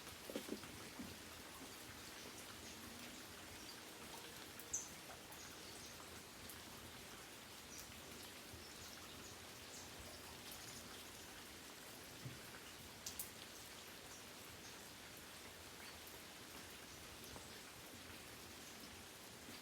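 Light rain falling steadily, with scattered individual drops; a few louder single drops stand out now and then.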